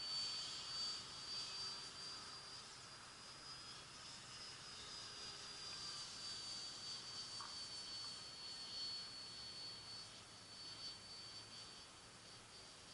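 Small radio-control model plane flying overhead. Its motor makes a thin, high whine that wavers slightly in pitch and slowly fades as the plane moves off.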